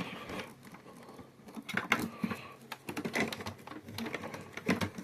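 Irregular plastic clicks and knocks as a vacuum cleaner's hose and attachments are handled and fitted into their storage on the back of the machine.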